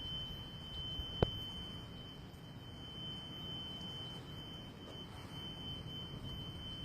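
Unexplained noise from the sky outside: a steady low rumble with a thin, steady high-pitched tone over it, and one sharp click about a second in.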